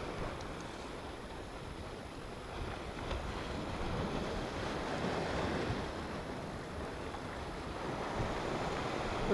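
Sea surf washing and breaking against shoreline rocks, a steady rushing of water, with wind buffeting the microphone.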